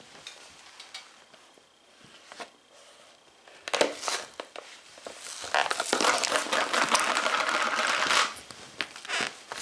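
A leather boot stomping on a tub of ice cream: a sharp crack about four seconds in, then a long, loud stretch of crunching and crackling as the tub is crushed flat, dying down about a second before the end with a few small clicks.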